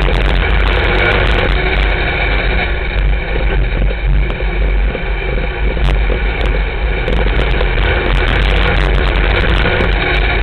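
Sportmod dirt-track race car engine running hard under racing load, heard loud and unbroken from inside the cockpit.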